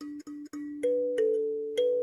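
Background music: a light melody of short, evenly spaced notes, about four a second, that gives way about a second in to longer held notes.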